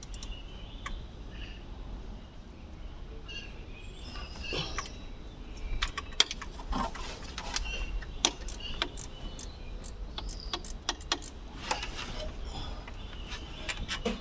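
Hand tools working on a car: irregular sharp metallic clicks and clinks, coming thicker from about halfway through.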